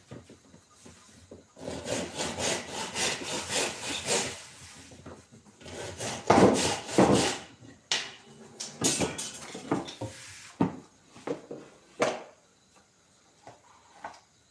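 Wood being worked by hand with a tool: irregular scraping, sawing-like strokes, a quick run of them, then one long loud stroke in the middle and a few shorter ones after.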